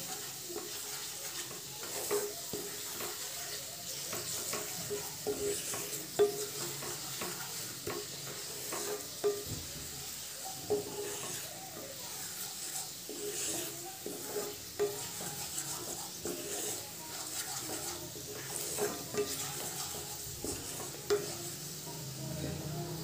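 Gram flour (besan) sizzling as it roasts in oil in a nonstick kadai, stirred continuously with a wooden spatula that scrapes and knocks against the pan every second or so.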